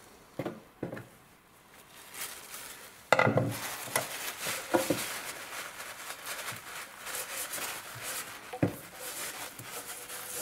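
Gloved hands handling a metal paint can on a wooden workbench: two light knocks, a sharp knock about three seconds in, then paper towel rubbing over the tin lid with occasional clicks.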